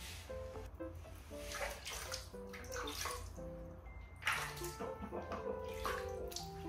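Water splashing and dripping as hands scoop water from a plastic basin onto a kitten's wet fur, in several short splashes, the loudest about four seconds in. Background music plays throughout.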